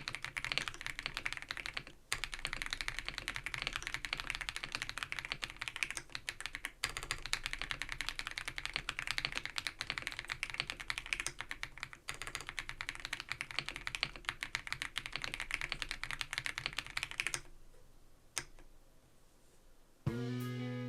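Fast continuous typing on an ABKO AK100 mechanical keyboard fitted with non-clicky Baby White switches, with a slight scratchy quality between keystrokes. The typing stops about 17 seconds in, and guitar music starts near the end.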